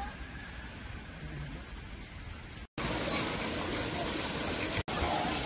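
Steady rush of spraying, splashing fountain water, much louder after a cut about two and a half seconds in; before that only a quiet outdoor hiss.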